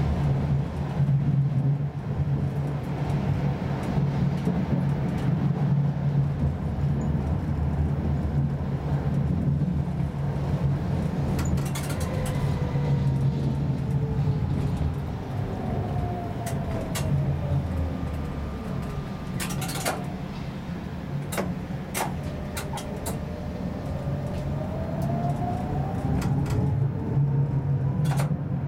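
Electric tram running along street track, heard from the driver's cab: a steady low hum with rolling noise. About halfway through, the electric motor whine glides down in pitch, then rises again near the end as the tram picks up speed. A few sharp clicks come in between, around two-thirds through.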